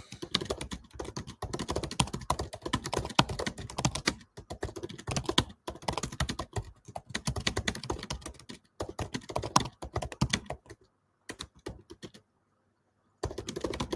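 Fast typing on a computer keyboard, in bursts of quick key clicks broken by short pauses. It stops for about a second near the end, then starts again.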